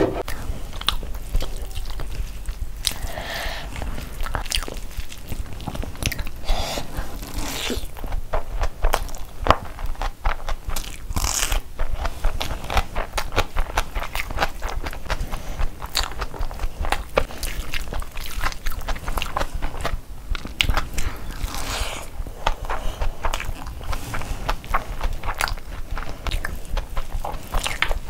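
A person eating close to the microphone, chewing and biting through mouthfuls of chicken biryani, mutton and naan, with a dense, continuous run of mouth clicks and smacks.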